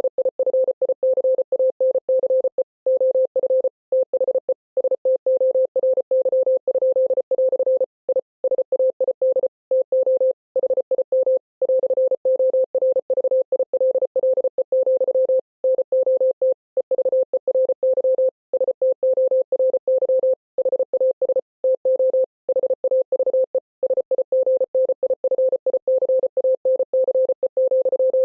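Morse code: a single beeping tone keyed on and off very fast in dots and dashes, with slightly longer pauses about every second between words.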